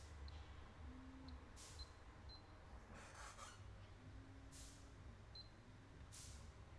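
Near silence: a low steady hum, with four short soft hisses about a second and a half apart.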